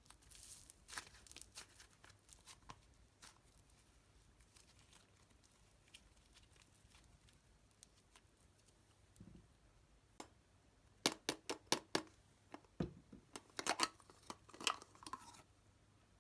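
Slime and mixed-in materials being handled by hand: scattered crackles at first, then a quick run of sharp clicks and pops near the end.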